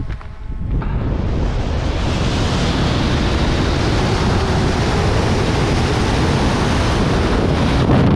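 Rushing wind of freefall blasting over the camera microphone, building over about the first second and then holding steady and loud.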